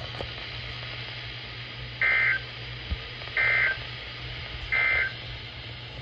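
Weather radio receiver sounding three short bursts of digital alert-header tones (EAS/SAME data), about a second and a half apart, over a steady low hum. This is the coded header that opens a new severe thunderstorm warning broadcast.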